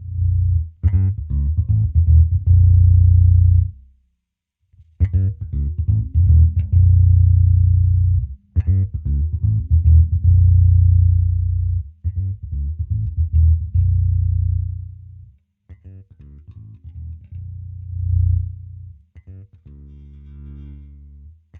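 Electric bass guitar with humbucker pickups played through a newly built handwired three-band EQ onboard preamp: phrases of plucked notes with a heavy low end. The playing breaks off briefly about four seconds in and again around eight and a half and fifteen seconds, and grows quieter and sparser near the end.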